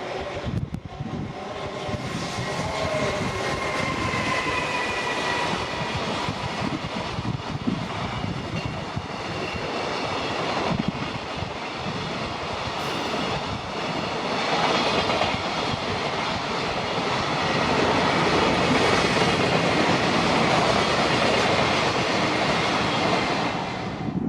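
A long freight train passing close by, its wheels clattering over the rails in a steady, dense rumble that grows loudest in the second half. Slowly falling tones sound a few seconds in.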